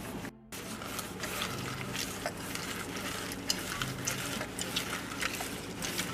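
Hand food-preparation noise: irregular light clicks and scrapes, with a faint low hum coming and going. The sound drops out briefly shortly after the start.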